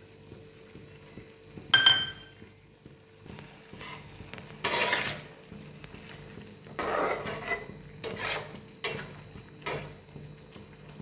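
One sharp metal clink with a brief ring about two seconds in, then a spatula scraping and stirring vegetables in a steel pan in several short strokes.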